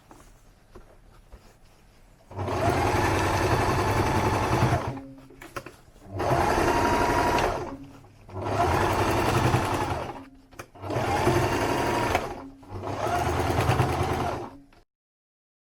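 Domestic sewing machine stitching in five short runs with brief pauses between them, its motor speeding up and easing off within each run.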